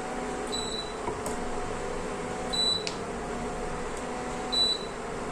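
Induction stove running under a pan of boiling water with a steady electrical hum, broken by three short high-pitched beeps about two seconds apart.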